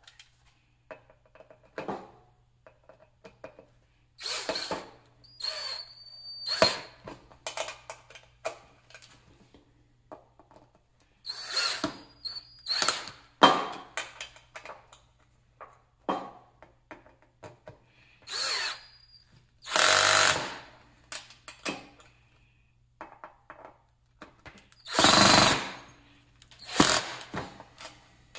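DeWalt cordless drill/driver running in repeated short bursts of about a second, driving stainless steel bolts through a rubber mud flap into a metal bracket, with small clicks and clatter of the fasteners between bursts.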